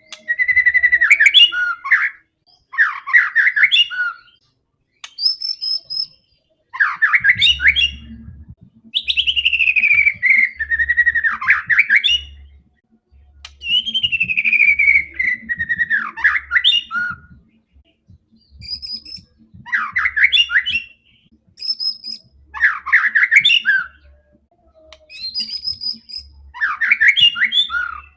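White-rumped shama singing loudly in repeated, varied phrases of a second or two with short pauses between them, including two long falling whistled notes midway.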